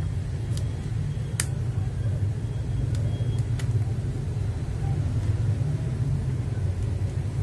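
Steady low rumble in the background, with a few sharp light clicks from small parts of a switch lube station being handled and fitted together.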